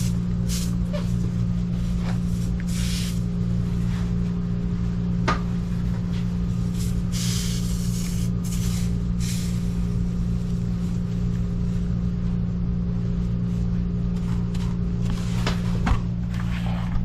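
A steady low mechanical hum throughout, with several short bursts of hissing and a sharp click about five seconds in.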